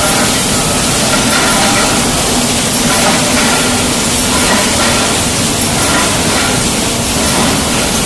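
Loud, steady din of a running automatic paint-can production line: machinery working and tinplate cans moving along conveyors, with a faint hum underneath.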